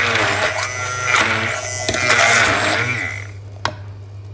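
Hand-held immersion blender running in a beaker of chopped raw onion, its whirring pitch wavering as the blades bite into the onion. It cuts off about three seconds in, and a single sharp knock follows shortly after.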